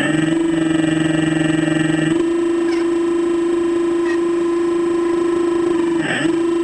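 Radio-controlled excavator's electric motors running with a steady buzzing whine while the boom and bucket work. A lower undertone drops away about two seconds in, and the pitch sags briefly and recovers near the end as the motor is loaded.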